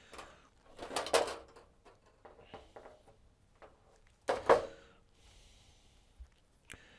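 Handling noise from LED backlight strips being moved and pressed against a TV's metal back panel: two brief, louder scrapes about three seconds apart, with softer clicks and taps between.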